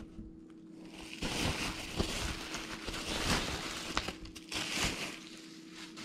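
Plastic wrap and bubble wrap crinkling and rustling as a wrapped steering wheel is handled, starting about a second in, with small crackles throughout.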